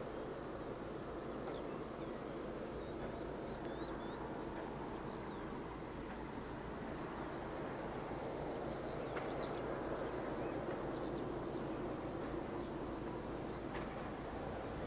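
Birds chirping repeatedly over a steady low outdoor background rumble.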